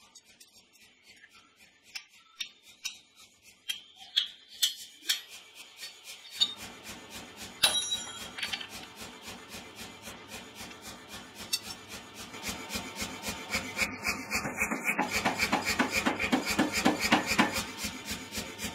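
A few sharp clinks of steel and tongs on the anvil, then a hydraulic forging press starts running with a fast, even rasping pulse, getting louder about two-thirds of the way through as it works the hot steel hammer head.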